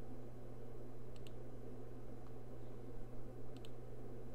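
Computer mouse clicking: two quick clicks at a time, once about a second in and again near the end, over a steady low electrical hum.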